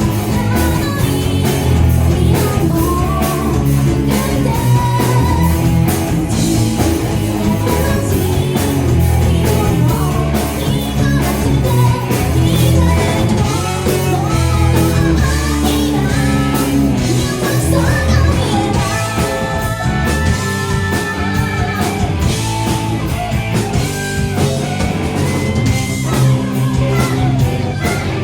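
Live rock band playing a cover of an anime theme song: electric guitar, bass and drum kit with sung vocals.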